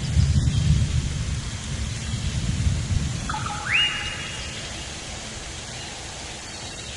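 Outdoor forest ambience: a low, gusty rumble that dies away about four seconds in, over a steady hiss. Midway, a single whistled note rises sharply and then holds for a moment.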